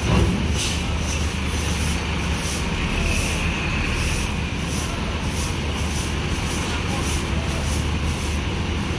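Heavy diesel engine running steadily at low revs, with a short knock right at the start.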